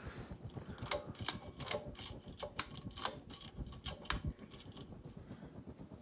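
Ceiling fan's pull chain and pull-chain speed switch being worked by hand: a string of irregular clicks and rattles for about four and a half seconds, dying away near the end.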